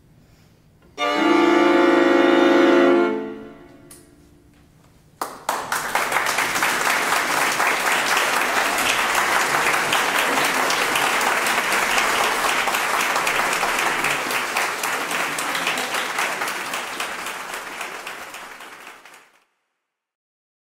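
A string quartet holds a loud closing chord for about two seconds, which then dies away. About a second later audience applause breaks out and runs steadily before fading and stopping shortly before the end.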